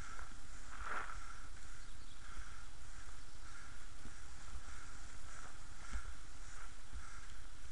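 Inline skates rolling on a damp asphalt road, with a rhythmic swish at each stroke, roughly one and a half a second, over a steady hiss and low rumble of wind and movement on the action cam.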